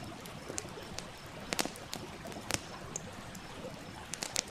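Wood campfire crackling with scattered sharp pops, a few close together about a second and a half in and again near the end, over the steady rush of a flowing stream.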